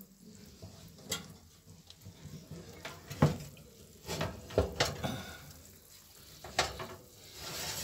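A glass baking dish being slid out of an oven on its wire rack, with scattered clinks and knocks of dish and rack, the loudest about three seconds in, over a faint hiss.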